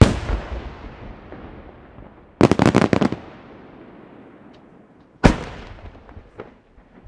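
Aerial firework shells bursting: a loud bang with a long rumbling tail, then a quick cluster of bangs about two and a half seconds in, another single bang about five seconds in, and a few smaller pops near the end.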